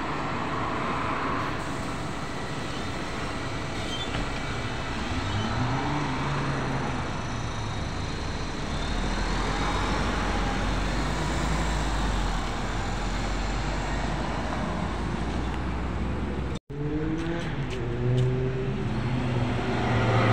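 Road traffic running past a roadside stop while an electric bus pulls in. Near the end the stopped bus gives a steady hum with several tones, louder at close range.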